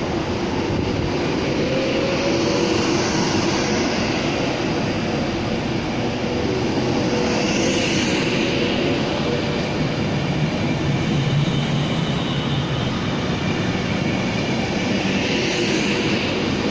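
Class 390 Pendolino electric train pulling slowly out past the platform: a steady whine from its electric traction equipment over the rumble of its wheels.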